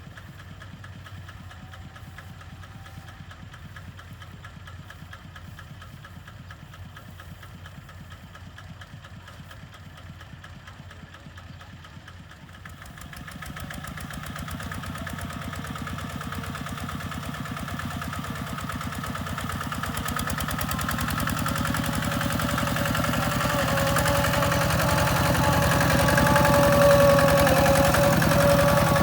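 A diesel engine running steadily, then growing markedly louder from about halfway through and building almost to the end.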